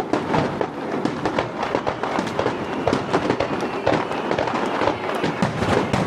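Fireworks display crackling and popping in a dense, continuous run of many sharp reports a second.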